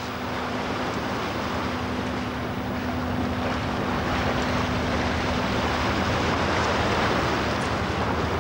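Churning propeller wash astern of a minesweeper under way: a steady rushing of water that grows slightly louder, over the low drone of the ship's engines, with wind on the microphone. A steady hum drops out about six seconds in.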